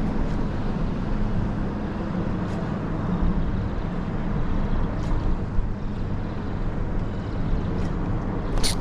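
Steady low hum under a rushing wind-and-water noise on a small fishing boat in a strong current, with a few faint clicks and a sharper click near the end.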